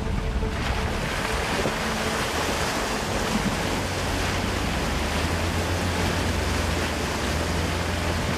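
Jeep's tyres ploughing through a muddy puddle: a steady rush of spraying water and mud that sets in about half a second in, over a low engine drone.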